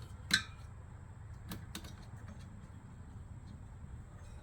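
A few light clicks and taps from handling a bicycle wheel in a truing stand. The sharpest click comes just after the start and two fainter ones follow about a second later, over a low steady hum.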